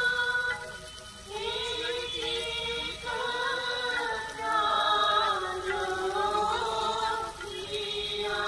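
Background music carried by a sung vocal melody of long held, slowly bending notes in phrases a few seconds long.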